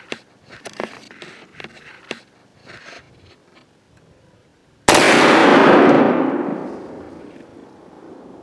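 A .50-caliber muzzleloader rifle fires once about five seconds in: a sudden loud boom that stays loud for about a second, then dies away over the next two seconds. Before it, light scattered clicks and rustles.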